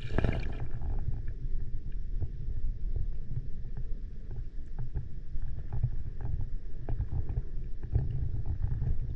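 Underwater sound in a rock tide pool, picked up by a submerged camera: a steady, muffled low rumble of moving water, with scattered faint clicks and crackles.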